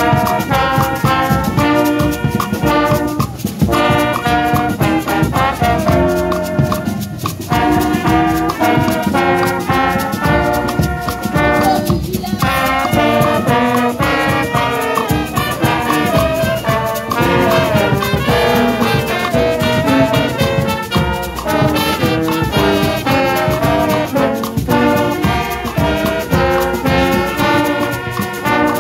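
Live brass band playing a tune, with trombones, euphoniums and trumpets sounding together and short breaks between phrases.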